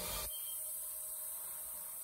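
Steady high hiss with no distinct event; a brief broad noise cuts off sharply about a quarter-second in.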